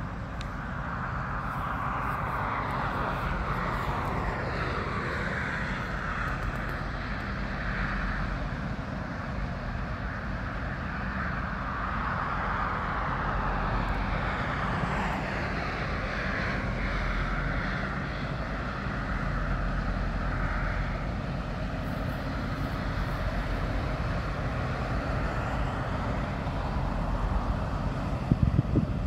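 Inland container barge's engine droning steadily as the ship passes, with a low rumble and a higher hiss that slowly swells and fades several times.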